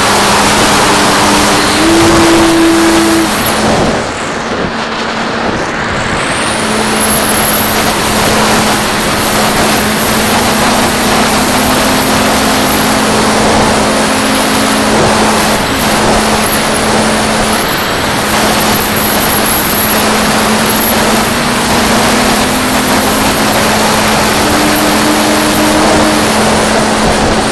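Mako flying wing in flight, heard through its onboard camera's microphone: a loud, steady rush of wind over the airframe with the electric motor and propeller humming underneath, the motor's pitch stepping up briefly about two seconds in and again near the end. The rush dips for a moment about four seconds in.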